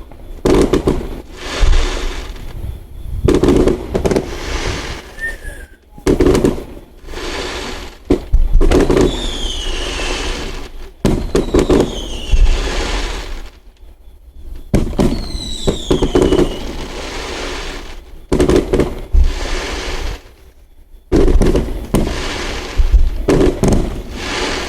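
Fireworks going off one after another: loud bangs and crackling bursts, each dying away, with several high whistles that slide down in pitch.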